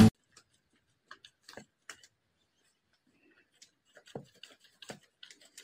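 Faint, scattered clicks and taps as a cat noses and paws into a stack of papers and books. Two slightly louder knocks come about four and five seconds in.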